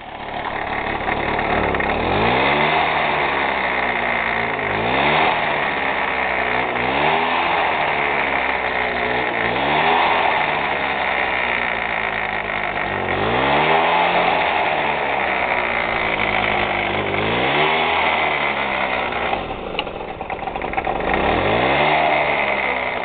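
Piaggio Ciao moped's warmed-up 49 cc single-cylinder two-stroke engine, revved up and allowed to fall back about seven times, roughly every three seconds.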